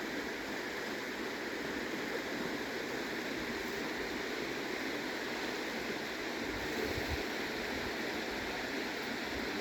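River water rushing steadily, a continuous even wash of flowing stream water.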